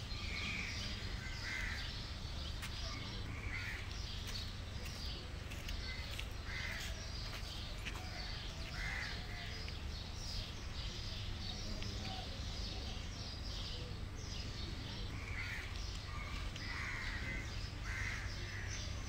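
Birds calling in short, high calls repeated at irregular intervals, over a steady low rumble of outdoor ambience.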